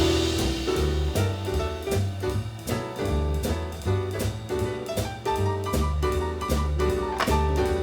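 Background music: upbeat jazz with a walking bass, piano and drum kit keeping a steady beat.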